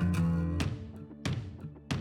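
Background music: a strummed guitar playing chords, with several sharp strummed accents.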